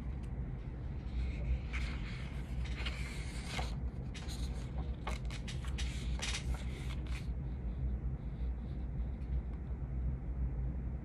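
Steady low room rumble with light rustling, scraping and clicks scattered through the first seven seconds or so, then only the rumble.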